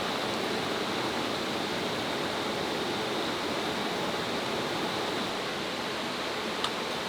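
Mountain valley stream rushing steadily over rocks, an even water noise without change, with one brief click near the end.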